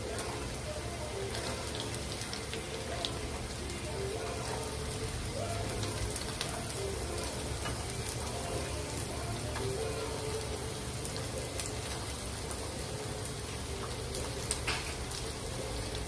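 Sliced green beans sizzling in hot oil in a wok, a steady crackling hiss, with the spatula scraping and clicking against the pan now and then and one sharper click near the end.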